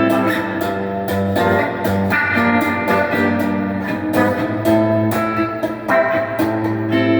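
Donner DST200 electric guitar played through an amp on its humbucker pickup: picked notes and chords ringing out, with frequent sharp pick attacks.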